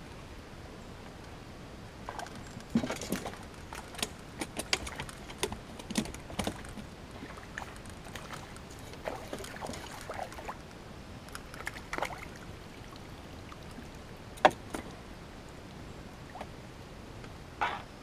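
Fishing tackle and rods being handled in a small boat: scattered clicks, taps and light rattles, busiest in the first half, with one sharp knock about two-thirds of the way through.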